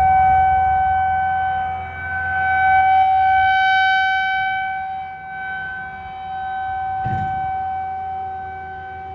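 Outdoor tornado warning siren sounding a steady, single-pitch tone that swells and fades in loudness every few seconds. A brief low thump about seven seconds in.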